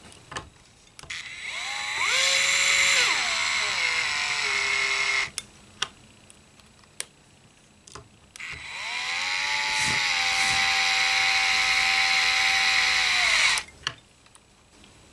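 Cordless electric screwdriver driving the small mounting screws of bass tuning machines into a maple headstock, in two runs of a few seconds each. Each run winds up, holds a steady whine and sags in pitch before stopping, with a few light clicks between the runs.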